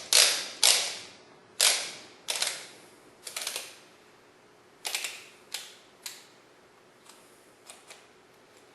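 Sharp metallic clicks as a torque wrench is reset and its socket handled, a few strong clicks about half a second apart at first, then fainter and more spaced out.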